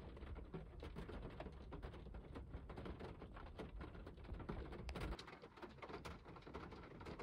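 Rain pattering on the car's roof and windows, heard from inside the cabin: a dense scatter of soft drop ticks. A low rumble underneath cuts out about five seconds in.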